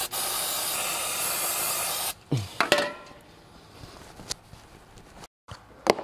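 A spray hissing steadily for about two seconds and cutting off sharply, followed by a few light knocks and clicks of handling.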